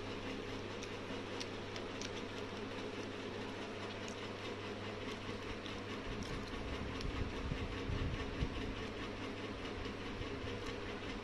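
A steady low mechanical hum with faint scattered clicks. A louder low rumble swells about six seconds in and fades by about nine seconds.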